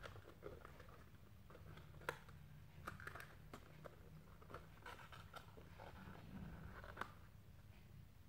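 Faint clicks and light rustling of a small plastic toy pack being worked open by hand, with a few sharper clicks about two, three and seven seconds in.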